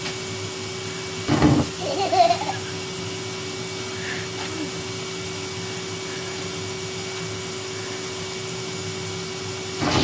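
Vacuum cleaner running steadily with a constant hum. About a second and a half in there is a short loud bump, followed by a brief baby's vocal sound.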